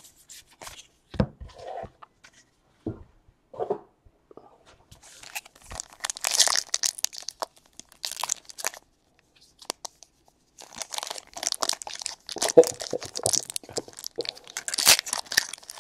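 Trading card pack wrappers being torn open and crinkled by hand. A few light taps come first, then two long stretches of crinkling and tearing, the second running to the end.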